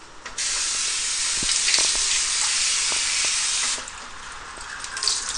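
Kitchen faucet turned on about half a second in, running water into a small bowl of chopped vegetables in a steel sink for about three seconds, then shut off abruptly. A few light clinks of the bowl against the sink follow.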